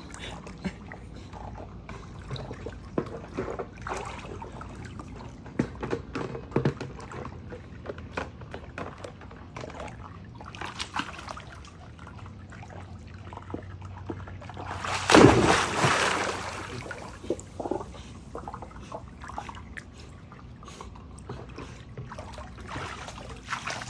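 Pool water sloshing and splashing as a dog wades and swims with a plastic tub, with small scattered splashes throughout and one loud splash about two-thirds of the way through.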